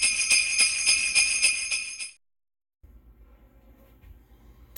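Jingle bells shaken in a quick, steady rhythm of about four shakes a second, bright and loud for about two seconds, then cut off sharply. A faint low hum follows.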